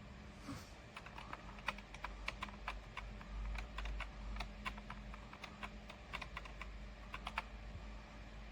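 Typing on a computer keyboard: uneven key clicks, several a second, beginning about a second in and stopping shortly before the end, over a low steady hum.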